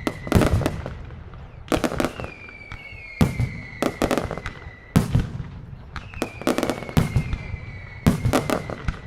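Mascletà firecrackers going off in loud volleys of rapid bangs, a cluster about every second and a half. Between them a whistling tone sounds again and again, each time dropping slightly in pitch.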